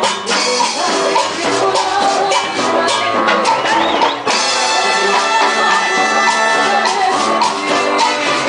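A live Latin dance band playing amplified on stage: a lively beat with hand percussion and a singer's voice over the band.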